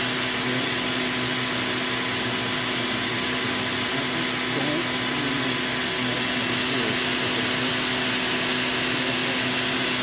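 Stick vacuum cleaner running steadily: a constant motor whine with a high steady tone over a broad rush of air.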